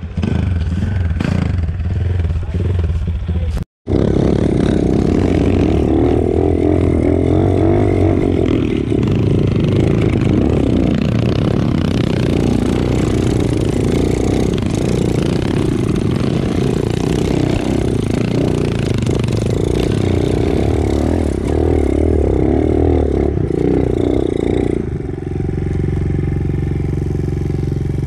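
Dirt bike engine running hard under load as the bike climbs a rough trail, with clatter and scraping from the bike. The sound breaks off for an instant a few seconds in, then runs on steadily and settles to a lower, easier note near the end.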